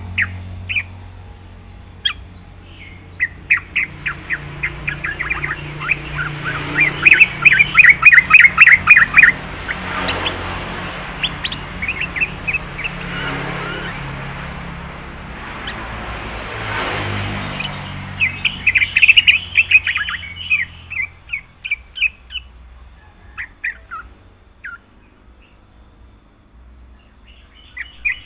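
Yellow-vented bulbul (trucukan) singing in rapid runs of short, loud chirping notes, with two dense bursts: one about seven seconds in and one near twenty seconds. A low rumble sits under the song and fades out after about twenty seconds, and a swell of noise rises and falls in the middle.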